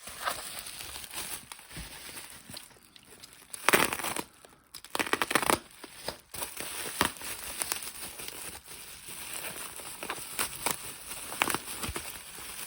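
Packaging being handled and unwrapped: crinkling and rustling with several louder tearing bursts, the loudest about four and five seconds in.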